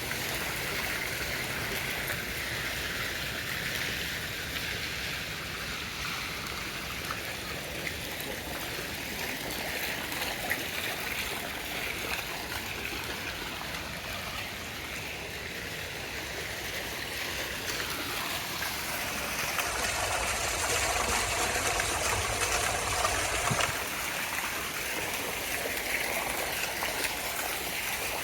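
Flowing water in a stream, a steady rushing that grows louder for a few seconds about two-thirds of the way through.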